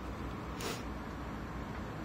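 Steady low background hum with one brief, soft high-pitched rustle a little over half a second in.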